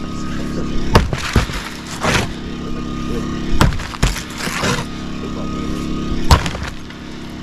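An engine running steadily, with five sharp crashes and thuds of demolition debris breaking and falling over it; the loudest comes about six seconds in.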